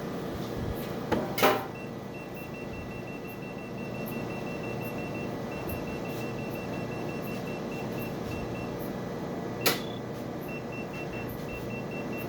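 Sciton BBL broadband-light system running with a steady fan hum, sounding a rapid run of short high beeps, with two sharp clicks about eight seconds apart.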